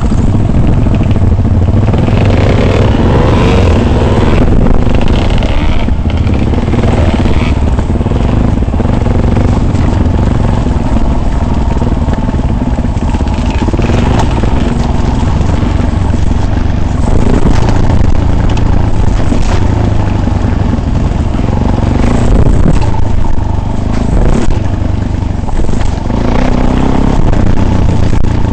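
Motor vehicle engine running steadily under way on an off-road track, with rattling and clattering over the rough ground.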